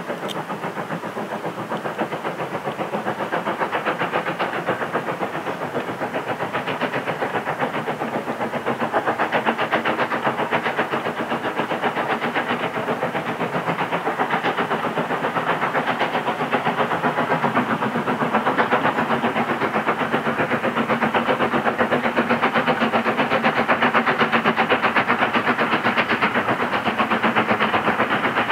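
A locomotive-hauled train running, a rapid, even pulsing beat that grows slowly louder.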